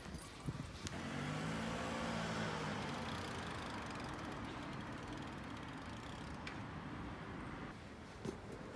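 A car engine running on the street, swelling about a second in and then slowly fading away.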